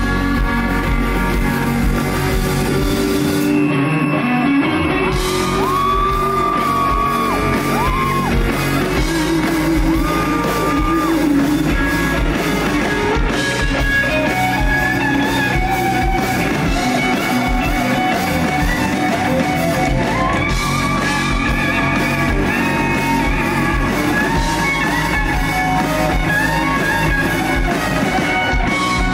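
A rock band playing live, with electric guitar prominent, and long held notes ringing out several times.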